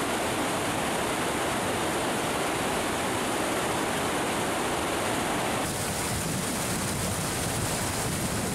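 Steady rushing noise of a fast mountain stream, shifting slightly in tone about six seconds in.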